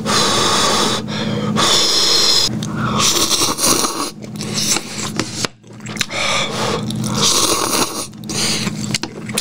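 A person slurping cup ramen noodles, with about seven long, airy slurps in a row and short breaks between them.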